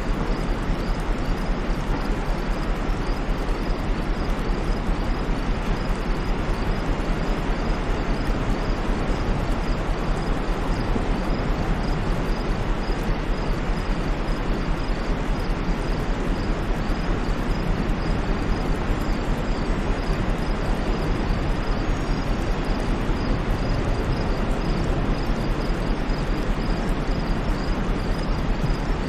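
Steady white noise, an even hiss with no swells or breaks, with a faint high chirping repeating a few times a second above it.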